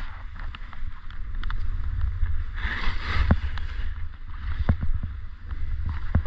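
Gliding downhill over packed, tracked snow: a steady rumble of wind on the microphone under the scraping hiss of the snow, with frequent small clicks and knocks from bumps. About three seconds in the scrape gets louder and broader for roughly half a second, as in a turn that sprays snow.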